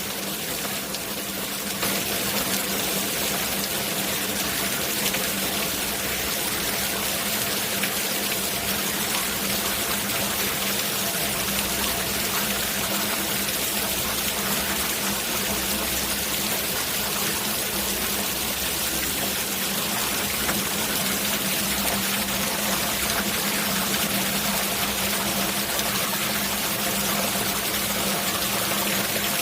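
Steady rain falling and running, an even hiss without a break, with a faint steady low hum underneath.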